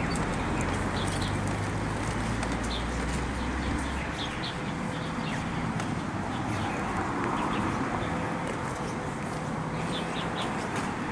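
Small birds chirping in short, scattered calls over a steady hiss of outdoor background noise; a low rumble stops about four seconds in.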